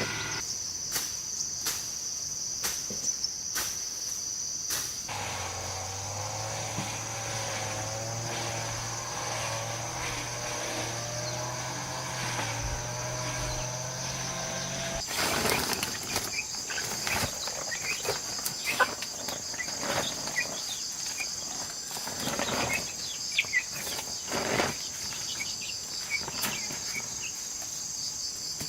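Insects or crickets trilling steadily in a high, continuous chorus. A low hum with a wavering tone runs under it through the first half, and scattered sharp clicks and knocks come more often in the second half.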